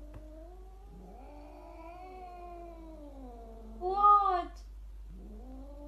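A cat yowling: a long, wavering, drawn-out call, then a louder, shorter cry about four seconds in.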